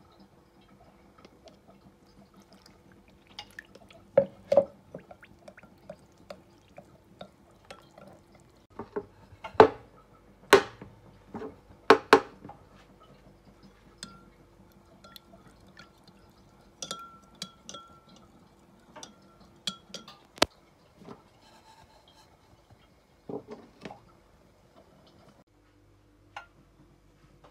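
A metal spoon clinking and tapping against glass bowls and dishes in scattered sharp clinks. The loudest come about four seconds in and in a cluster between about nine and twelve seconds in.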